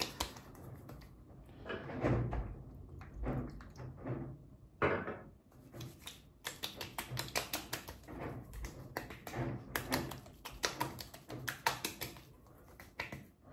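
Hands patting and slapping aftershave splash onto wet skin of the face and neck: runs of quick, light pats in clusters, with a few softer rubbing strokes between them.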